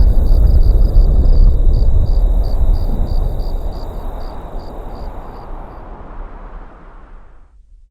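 Outdoor ambience of a heavy low rumble with crickets chirping in an even pulse, fading out to silence near the end.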